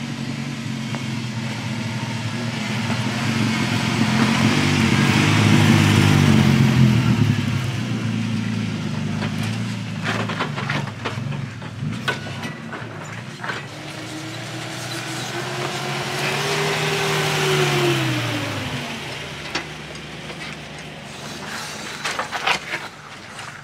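Two 4WDs driving past one after the other on a dirt track: a red Nissan Patrol's engine builds to a peak and fades, then a white Toyota LandCruiser V8's engine note rises and drops away as it passes. Stones crack and pop under the tyres.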